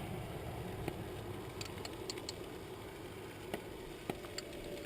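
Sausages frying in a pan on a camping stove: a steady low sizzle, with a few light clicks scattered through it.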